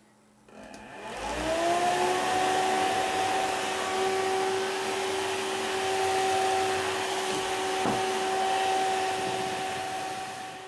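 Nidec TA500DC 120 mm brushless DC server fan switched on, spinning up in about a second and a half to full speed, then running at a steady high whine with a strong rush of air blowing through a cardboard reduction funnel. It cuts off abruptly at the very end.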